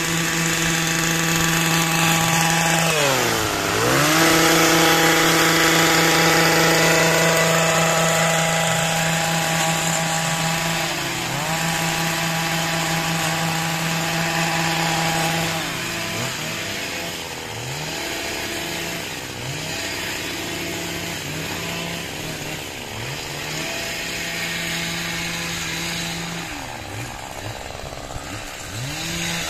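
Petrol long-reach pole hedge trimmer running hard, its engine held at high revs with the throttle eased off and opened again several times as the blade cuts. Near the end it drops back to a lower, idling note and revs up once more just before the end.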